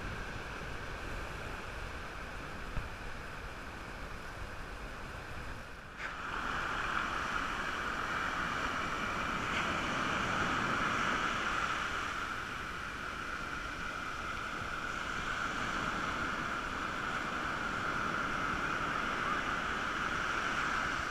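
Ocean surf breaking and washing up a sandy beach, a steady rushing wash that turns louder and brighter about six seconds in.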